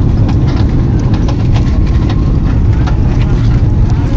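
Airliner rolling down the runway on landing, heard from inside the cabin: a loud, steady low rumble of engines and wheels, with irregular sharp clicks and rattles throughout.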